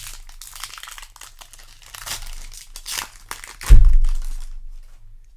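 Foil booster pack being torn open and crinkled in the hands, with irregular crackling. A single loud, low thump about two-thirds of the way through.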